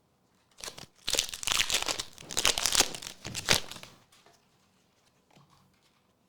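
Foil Pokémon TCG booster pack wrapper being torn open and crinkled, a run of rustling and crackling for about three seconds, followed by a few faint ticks of card handling.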